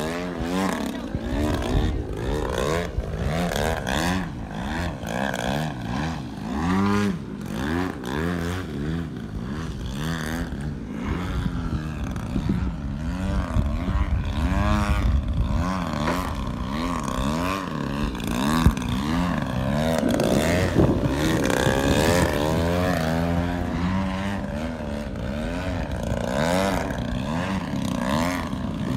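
The GP-123 engine of a 103-inch Pilot-RC Laser radio-controlled aerobatic plane in flight, its pitch swinging up and down again and again as the plane manoeuvres and passes overhead.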